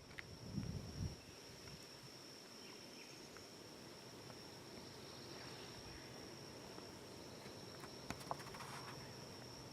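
Steady, high-pitched insect trill held as one unbroken tone, with a few soft low thumps in the first second.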